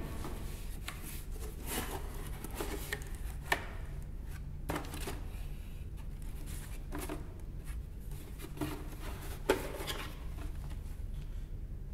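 Box being handled and opened: scattered light taps, clicks and rubs, two of them sharper than the rest, over a low steady hum.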